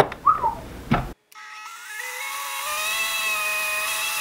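Clicks and knocks of handling in the first second, then, a little over a second in, a Vitamix blender motor starts up. Its high whine rises in pitch for a second or two, then holds steady as it blends a thick smoothie.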